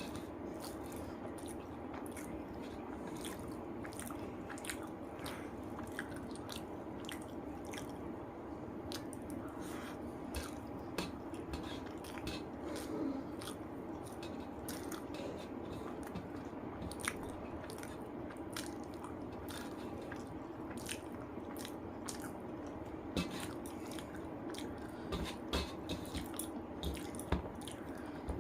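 Close-miked chewing and biting of rice and spicy chicken curry, with many short wet clicks and occasional crunches over a steady low background hum.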